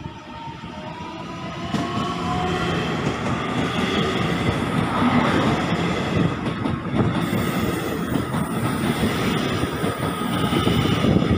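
Taiwan Railway electric multiple unit commuter train arriving along the platform. A motor whine glides in pitch as it comes in, then gives way to a loud rumble and wheel clatter as the cars roll past.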